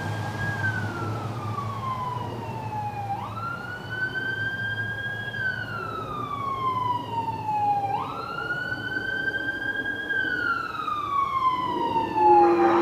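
Emergency vehicle siren wailing. Each cycle jumps up quickly, holds, then glides slowly down, repeating about every four to five seconds.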